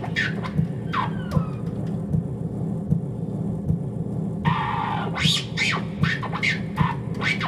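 Vinyl record scratched by hand on a turntable, in quick sweeping strokes, over a steady low pulsing drone. The scratches stop for a couple of seconds mid-way, then come back as a rapid flurry after a short burst of noise.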